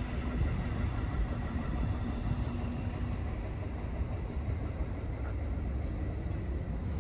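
Steady low rumble of a passing vehicle, with a steady hum that fades out about two and a half seconds in.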